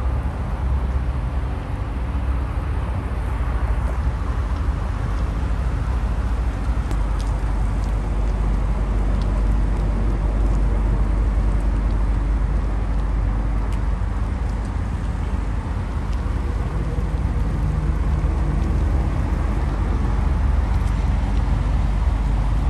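2023 Range Rover Autobiography's 4.4-litre twin-turbo V8 running steadily with a low, even rumble.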